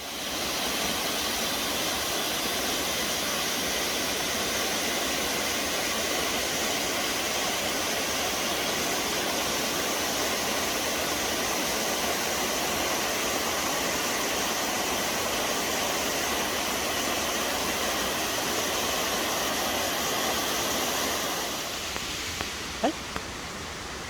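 Waterfall rushing, a steady loud roar of falling water. Near the end it drops a little in level, and one short sharp click or chirp sounds.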